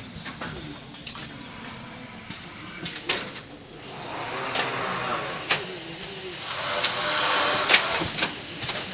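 Automatic canvas stretching machine running its cycle: its pneumatic actuators click sharply every second or so, with a couple of short high squeaks in the first second. A steady air hiss builds from about four seconds in and holds to the end.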